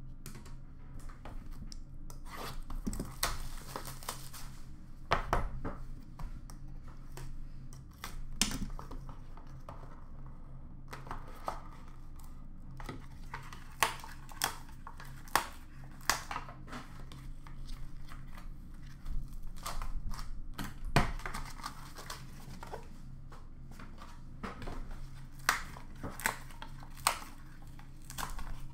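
Trading cards and hard plastic card holders being handled and set down on a glass counter: scattered clicks and taps with intermittent crinkling of plastic, a few sharper clicks standing out.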